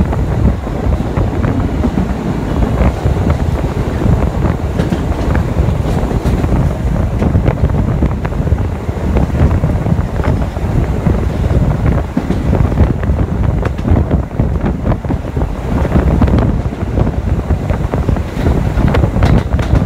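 Subway train running at speed: a loud, steady rush of wind on the microphone over the low rumble of the train on the rails, with frequent short clicks and clatter from the wheels and track.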